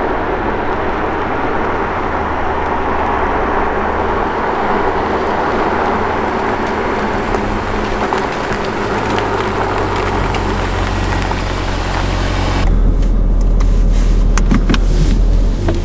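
Jaguar F-Type R's supercharged V8 driving along at a steady pace, a constant engine and road noise with no sharp revs. About three-quarters of the way through, wind starts buffeting the microphone with a heavy low rumble and crackles.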